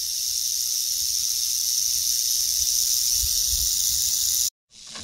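Timber rattlesnake rattling its tail as a warning: a steady, high-pitched buzzing hiss that cuts off suddenly near the end.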